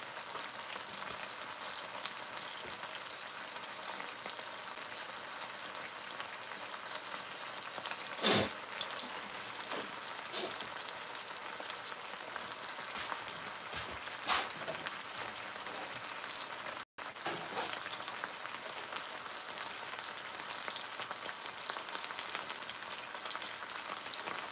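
Bacon-wrapped pork loin sizzling and crackling as it sears in a skillet, with one loud sharp pop about a third of the way through and a few smaller pops after it.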